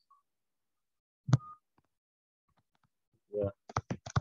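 Mostly quiet, with one sharp click about a second in and a quick run of sharp clicks near the end, from pen and computer input while handwriting on a digital whiteboard. There is a short low vocal sound just before the run of clicks.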